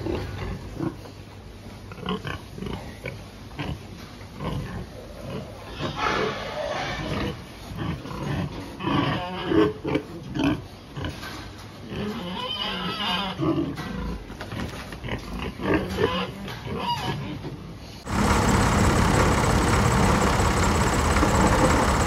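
Pigs grunting and squealing, a boar moving among sows, with scattered clicks. About 18 s in, this gives way abruptly to a loud, steady engine noise heard from inside a heavy machine's cab.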